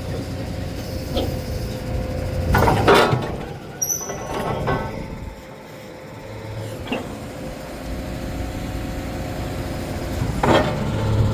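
Truck-mounted water well drilling rig running: a steady engine hum, broken by several sharp metallic clanks, the loudest about three seconds in.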